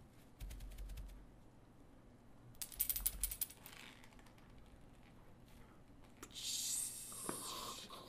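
Home-made Foley sound effects: a few light clicks, then a quick run of sharp clicks and clatter about three seconds in, and a brief hissing swish near the end.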